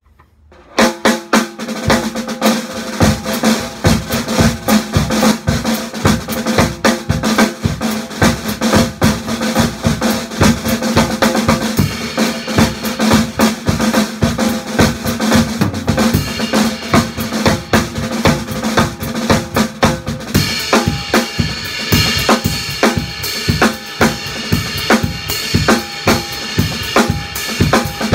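Acoustic drum kit played solo: snare, bass drum and cymbals in a busy, fast groove, starting about a second in. About twenty seconds in the playing changes and turns brighter.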